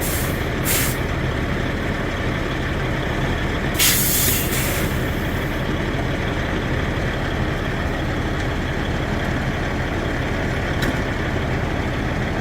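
Semi truck's diesel engine running steadily, with short bursts of air hiss at the start and a louder one about four seconds in, typical of air brake release.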